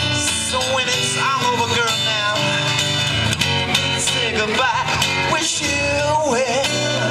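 Blues-style song with guitar, a wavering melody line over steady bass notes.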